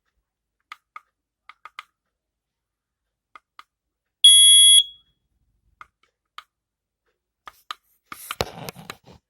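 A smoke alarm's horn, on a First Alert unit, sounding one loud, high-pitched beep of about half a second a little past the middle. Faint clicks come before and after it, and a short burst of rustling comes near the end.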